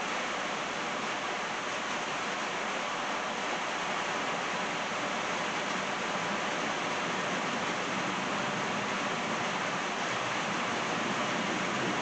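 Steady rain falling on a driveway and trees, an even hiss with no breaks.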